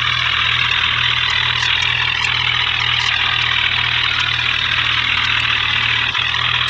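Bulldozer engine running steadily at an even idle, with a constant low drone and a fast, regular pulsing.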